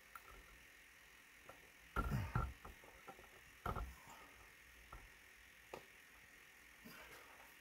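A few soft knocks and a short rumbling scrape, loudest about two seconds in, with another knock near four seconds, as a wooden desk top covered in wet epoxy is shifted and tilted on its supports by a gloved hand.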